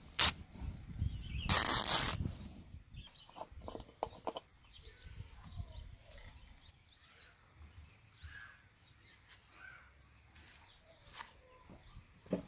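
Scissors cutting a cotton cloth: a sharp snip, then a rasping cut lasting about half a second. After it come quieter handling sounds with faint bird chirps.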